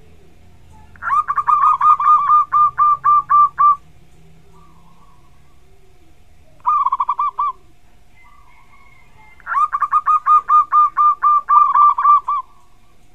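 Zebra dove (perkutut) singing: bouts of rapid, staccato cooing notes. It gives two long runs of about a dozen notes each, with a short run between them. A faint steady hum sits underneath.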